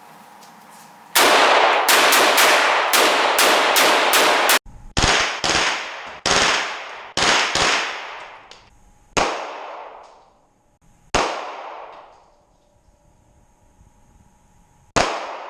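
Gunfire in an indoor range, each shot echoing off the walls: a fast, continuous string of shots for about three and a half seconds, then single shots at growing intervals, the last one near the end.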